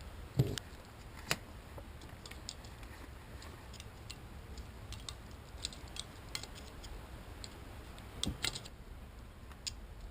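Light metal clicks and taps, scattered and irregular, as bearing parts are worked off an outboard crankshaft by hand; a couple of sharper knocks near the start and a short cluster of clicks near the end.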